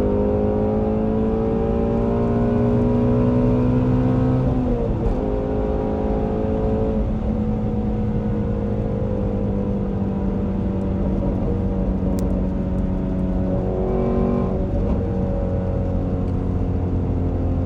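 Shelby GT350R's 5.2-litre flat-plane-crank V8 running under way, its pitch rising gently for the first few seconds. About five seconds in the pitch drops at a gear change, then sinks slowly, with another change in pitch about fourteen seconds in.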